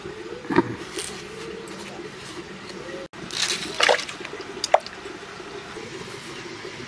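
Chunks of cut potato dropping into a pot of water, with a few short sharp splashes, the loudest between about three and a half and five seconds in.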